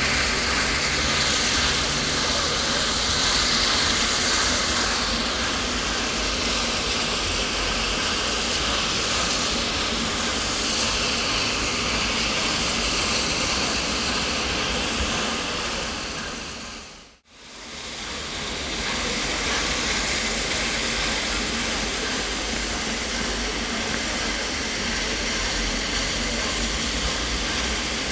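Peppercorn A1 Pacific steam locomotive 60163 Tornado, a steady hiss of steam. About 17 seconds in, the sound fades briefly to near silence and comes back.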